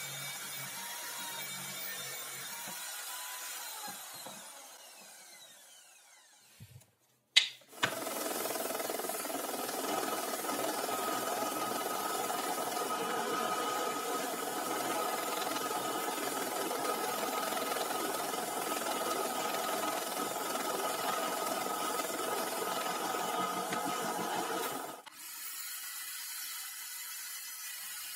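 An electric drill in a wooden drill stand runs down, its whine falling in pitch until it fades out. After a sharp click, a power tool motor runs steadily with a constant whine for about seventeen seconds, then cuts off abruptly and leaves a quieter steady hum.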